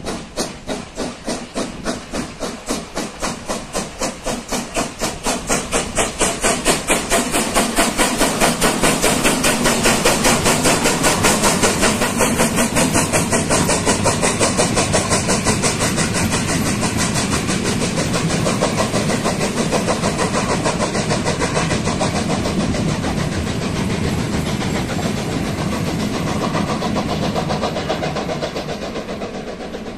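Steam locomotive working a passenger train, its exhaust chuffing in an even rhythm of several beats a second that grows louder as it comes close and then slowly fades as the coaches roll past.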